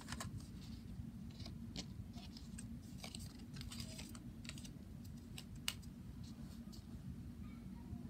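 Plastic Lego pieces being handled and pressed together: irregular small clicks and rattles, with one sharper click about two-thirds of the way through, over a low steady hum.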